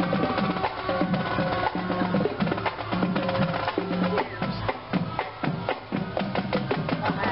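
Marching band drums playing a cadence: dense, rapid drum strikes over a repeating low beat.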